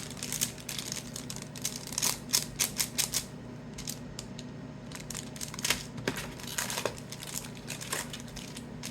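Foil trading-card packs being handled, their wrappers crinkling with a run of sharp clicks and ticks, thickest around two to three seconds in.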